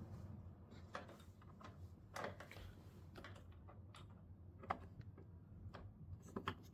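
Faint, scattered clicks and taps of a screwdriver and hands working a screw out of a television's plastic back cover, with a small cluster of clicks near the end.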